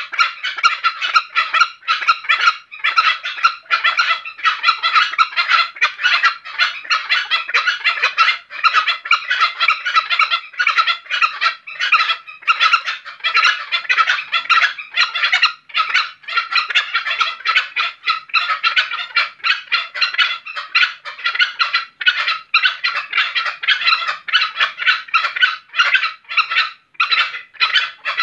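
Green junglefowl calling without a break: a loud, dense, fast chatter of short calls. The title takes this for the birds' characteristic call when they are in breeding condition at night.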